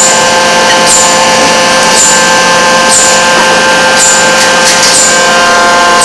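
Forging machine with hydraulic press and electric-resistance heating running: a loud, steady machine hum made of several steady tones, with a short high hiss repeating about once a second.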